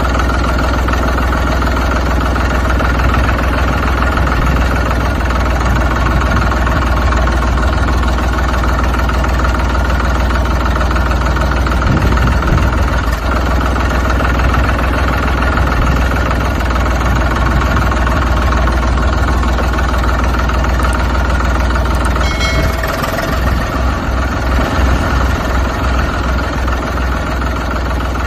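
Tractor engine running steadily, with a low pulsing beat of a few beats a second coming in about three-quarters of the way through.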